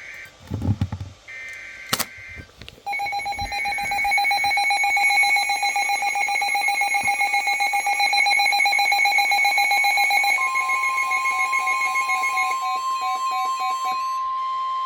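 Emergency Alert System tones. A brief low thump comes first, then short bursts of digital data tones. From about three seconds in, a loud multi-tone alert signal with a fast pulse sounds, and about ten seconds in a steady single tone near 1 kHz joins it and outlasts it.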